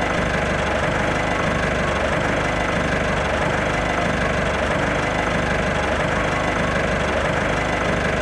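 A steady, engine-like mechanical running sound with a low pulse that repeats evenly.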